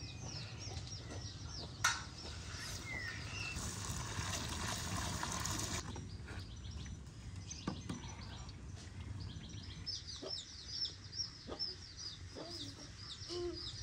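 Chickens clucking among many quick, high chirps of small birds. A rushing hiss swells for a few seconds in the first half, and a few sharp knocks sound.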